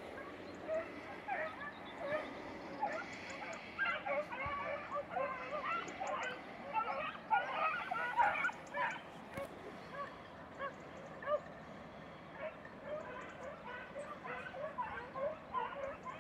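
A pack of beagles giving tongue as they work a hare's scent: many short, overlapping baying yelps, thickest in the middle and thinning toward the end.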